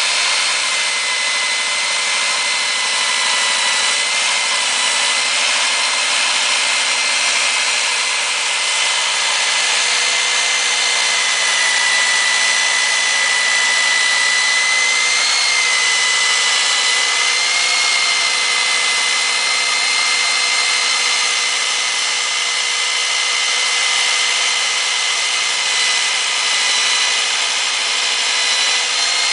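Kor-it K-806 electric core drill's 1500-watt motor running steadily on its stand, the core bit cutting into a concrete slab. A steady high-pitched whine throughout.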